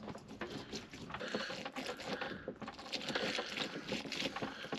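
Blood orange halves pressed and twisted on a plastic hand citrus reamer over a glass jar: a continuous scratchy, wet squeezing and scraping of pulp and rind against the plastic, with many small crackles.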